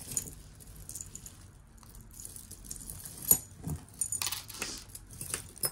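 Costume jewelry jangling and clinking as pieces are handled and sorted, with irregular small clicks and a sharper click about three seconds in.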